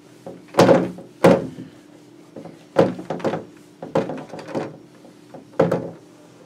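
Handheld whiteboard eraser wiped across a whiteboard in about seven short, quick strokes, each a brief knock-and-rub against the board.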